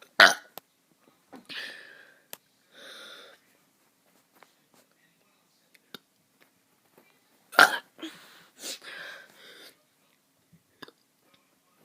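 A child burping on purpose: two short burps about seven and a half seconds apart, each followed by softer breathy throat sounds.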